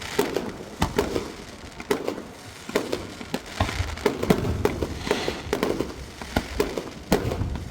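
Aerial fireworks bursting in an irregular series of sharp bangs, about two to three a second, with crackling between them.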